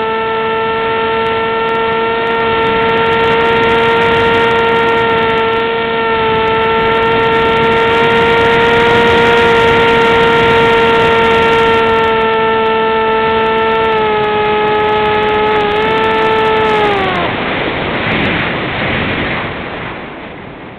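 Radio-controlled model airplane's motor and propeller, heard from a camera on the plane itself, holding a steady high-pitched drone that dips slightly about two-thirds of the way in. Near the end the pitch slides down and dies away as the throttle is cut, leaving the rush of air over the plane.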